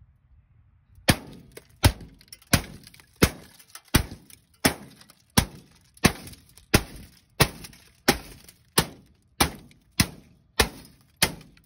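Hammer beating a microwave oven's glass-and-metal door, about sixteen sharp blows at an even pace of roughly one and a half a second, starting about a second in.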